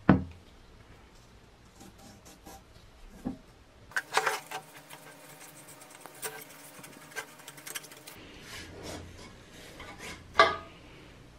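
Rusty metal parts of an old copper and brass crop sprayer being handled and taken apart: scraping and rubbing of the spray lance and its fittings, broken by a few sharp knocks, the loudest right at the start and about ten seconds in.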